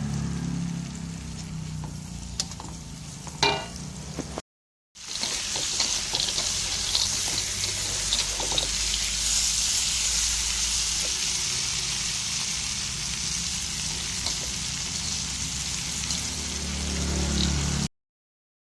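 Food frying in hot oil in a pan, a steady sizzle, with a couple of sharp knocks from a utensil in the first few seconds. After a brief dropout the sizzle comes back louder and steady, then cuts off suddenly shortly before the end.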